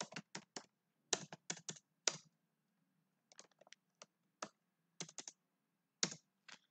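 Computer keyboard typing: irregular keystrokes in quick little runs separated by short pauses.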